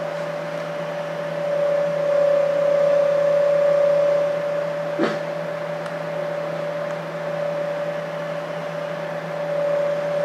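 A steady hum, one clear tone over a lower drone, a little louder a couple of seconds in, with a single short click about halfway through.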